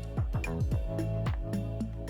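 Background music with a steady beat: an electronic track with a deep falling bass drum on each beat and sustained synth chords.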